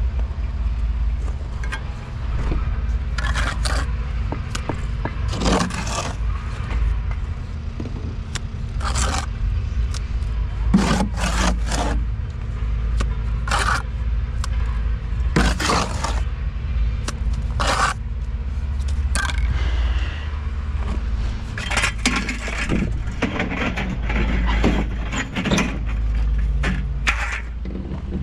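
A series of short, irregular scraping strokes, about fifteen in all, over a steady low rumble.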